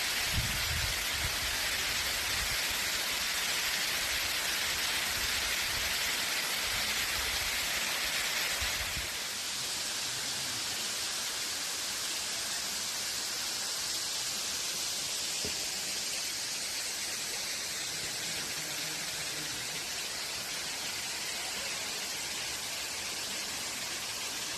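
Steady rush of falling water from a high forest waterfall. About nine seconds in, a low rumble drops away and the rush changes tone and eases slightly.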